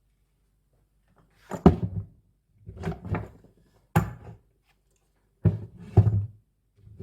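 A series of knocks and thunks from hard parts being handled and set down: about five separate bumps spread over several seconds, the loudest near the start and near the end.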